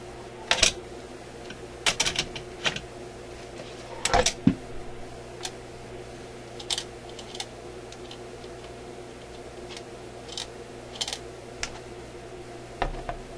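A record changer being handled: irregular sharp clicks and knocks as the record is lifted off the spindle and the changer's parts are worked by hand, about a dozen in all and thinning out after the first few seconds, over a steady low hum.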